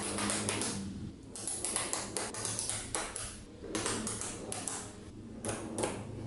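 Small magnet balls clicking and snapping together in quick clusters of sharp ticks as rows of them are pushed into one another to form a flat sheet.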